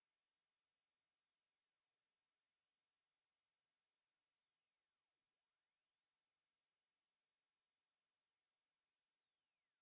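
Hearing-test tone: a single pure sine tone rising smoothly and steadily in pitch, from a high whistle up toward the top of human hearing.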